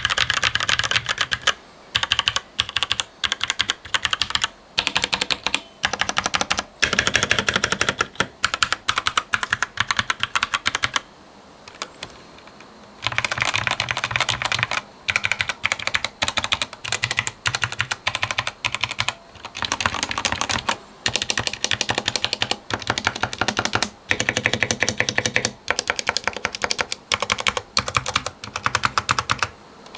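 Typing on mechanical keyboards with red linear switches, comparing a budget 60% board modded with packing-foam dampening and PBT keycaps against a Royal Kludge. Keystrokes come in fast runs of clacks with short pauses between them, and a longer pause about eleven seconds in.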